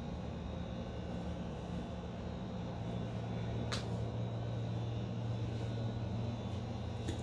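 Corgi hiccuping: one sharp hiccup about halfway through and a fainter one near the end, over a steady low hum.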